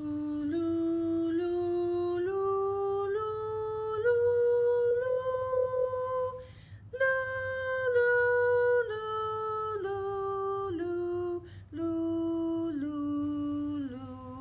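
A woman singing the C major scale on 'lu', one held note per step, climbing to the top do, then after a breath stepping back down to the bottom do, with another quick breath on the way down.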